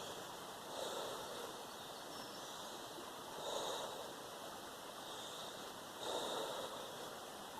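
A person's deep breaths during a breathing exercise, three in all, one about every two and a half seconds, over a steady background hiss.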